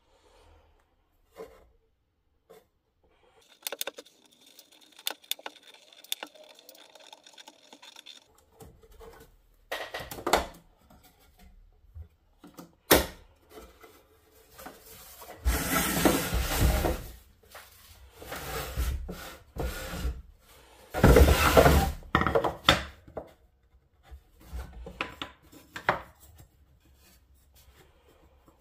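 Wood being handled and worked by hand: scattered knocks and clicks with rubbing and scraping, and two louder scraping passes of about a second each in the second half.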